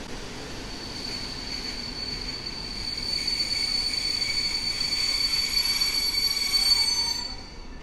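A PKP Intercity Pendolino (ED250) high-speed train pulling out of the station, its wheels giving a steady high-pitched squeal over the rumble of the train. The squeal grows louder through the middle and fades out near the end.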